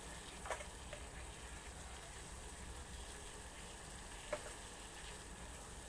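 Pan of hot water on a gas stove at high flame: a steady hissing simmer, with a couple of light clicks, one about half a second in and one about four seconds in.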